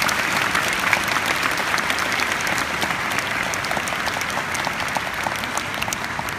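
Audience applauding: a dense, steady clatter of many hands clapping, easing slightly toward the end.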